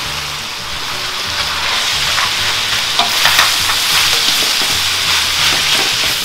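Cold cooked rice frying in hot oil in a stainless steel wok, sizzling as it is stirred and tossed with two silicone spatulas. The sizzle grows louder a second or two in, once the stirring gets going.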